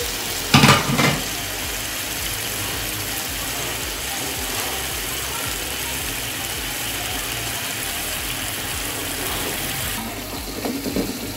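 Chicken and masala sizzling in an aluminium pot while a spatula stirs and scrapes through it, a steady hiss, with a brief louder burst about half a second in.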